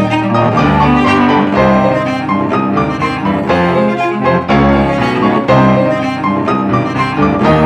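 Instrumental tango music with piano and bowed strings, cello and double bass carrying the low line, playing steadily with a regular beat.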